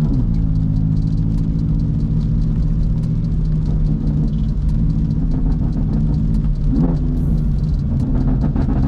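BMW F80 M3's S55 twin-turbo straight-six heard from inside the cabin, cruising at a steady low engine speed with a constant droning exhaust note and a brief change in pitch about seven seconds in. The exhaust runs catless downpipes and a resonator-deleted midsection into an Eisenmann rear, and the owner finds its tone unpleasant.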